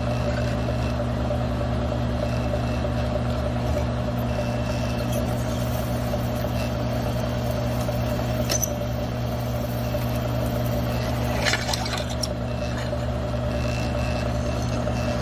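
Milling machine running steadily as its twist drill cuts into a plate of aluminum, a low motor hum under the cut. A few short sharp clicks come in the second half, as chips break off.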